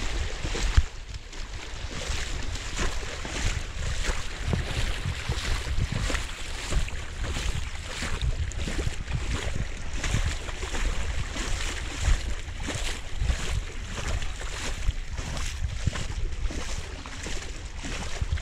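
Floodwater rushing strongly across a road, with wind buffeting the microphone in gusts. One sharp thump about a second in.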